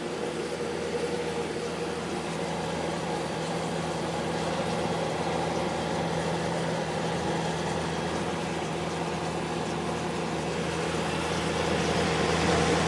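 Magic Chef dehumidifier running steadily: fan airflow with a low, even hum from the running unit, getting slightly louder near the end. This unit's compressor has been cycling off and on every couple of minutes.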